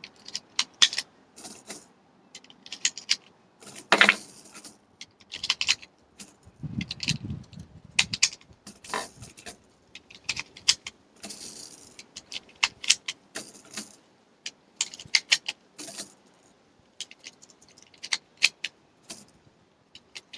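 Metallic clicks and rattling of .45 ACP cartridges being pressed one at a time into an extended 1911 pistol magazine, at an uneven pace with a louder knock about four seconds in.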